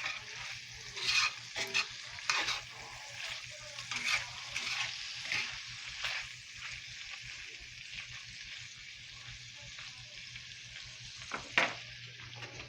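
Bacon sizzling and crackling in a frying pan on a stove burner, with a few sharper pops spread through.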